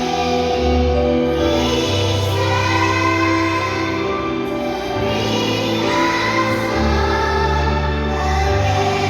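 Choir singing in parts over sustained chords, with a low bass note that changes every couple of seconds.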